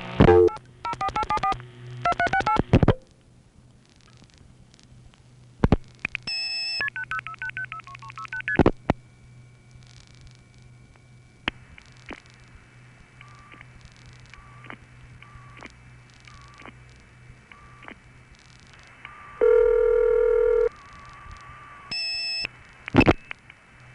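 A vintage long-distance telephone call being set up over the trunk network. Two rapid sequences of multifrequency (MF) signalling tone pulses are followed by clicks and short beeps of the call stepping through a step-by-step tandem, over steady trunk hum and hiss. About a second of ringing tone sounds near the end.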